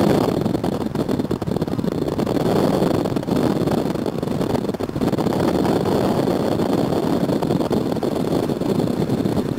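Steady road and wind noise of a moving car, heard from inside the cabin.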